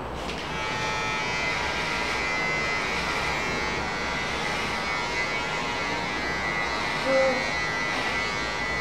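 Electric hair clippers buzzing steadily as they cut a small child's hair, the hum starting about half a second in.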